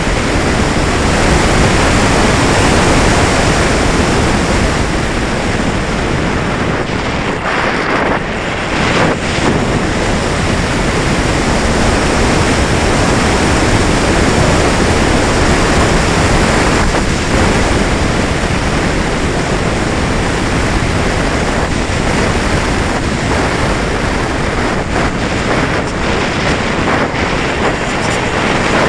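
Steady rush of air over a wing-mounted onboard camera's microphone on an R/C sailplane in flight, loud and even, with no motor whine heard. The rush eases briefly about a third of the way in.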